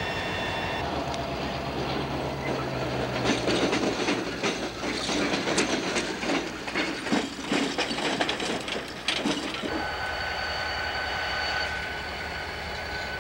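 Diesel locomotives in a rail yard. A steady engine sound at first, then from about three seconds in a rapid run of clicks and clanks of wheels rolling over the track. After about ten seconds it settles back to a steady engine sound with a high whine.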